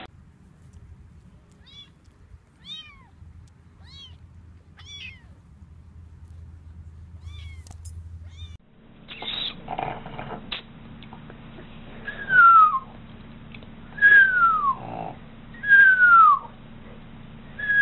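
An animal's calls: faint, short, high cries about one a second, then after a break four loud calls, each falling in pitch over less than a second, about two seconds apart.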